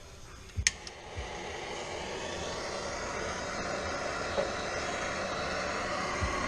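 A handheld torch clicks as it is lit about a second in, then its flame burns with a steady hiss, heating a seized brake bleeder screw to free it.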